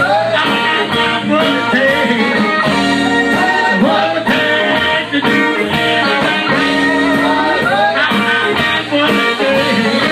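Live blues-rock band playing an instrumental passage: guitar lines with bent notes over a steady drum beat.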